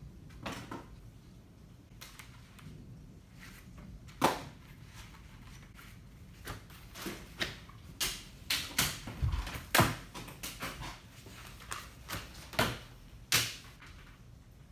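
A string of sharp, irregular knocks and slaps, about a dozen, starting about four seconds in, as light plastic sports cones are flipped and handled.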